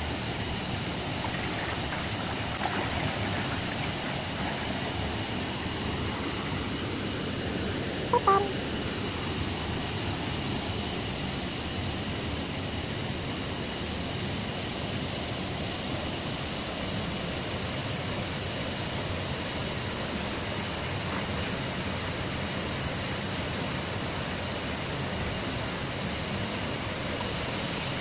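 Steady rushing of falling and flowing waterfall water. A brief, short sound comes through about eight seconds in.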